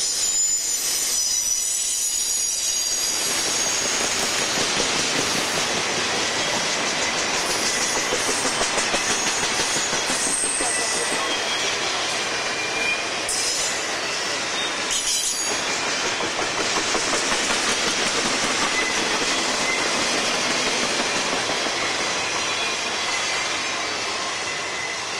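Union Pacific double-stack intermodal freight cars rolling past close by: a steady rumble and clatter of steel wheels on rail, with brief thin high squeals from the wheels. It eases a little near the end as the last car goes by.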